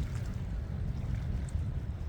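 Wind buffeting the microphone: an unsteady low rumble that rises and falls in gusts.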